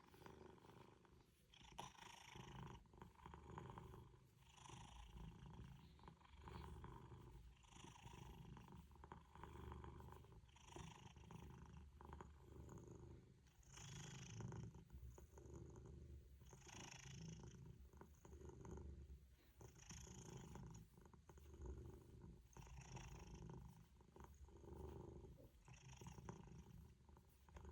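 Domestic cat purring, faint and continuous. It swells and eases with each in- and out-breath, about every one and a half seconds.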